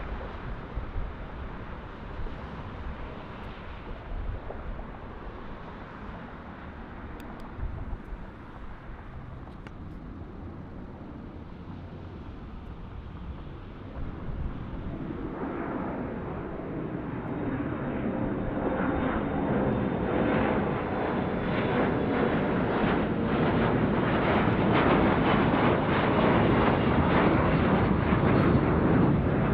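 Embraer E175 regional jet's twin GE CF34 turbofans at takeoff power: a distant low rumble during the takeoff roll, growing steadily louder through the second half as the climbing jet comes nearer.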